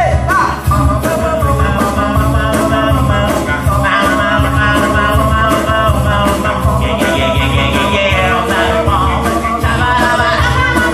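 Live band music with a steady, even percussion beat and a strong bass line, with male voices singing over it.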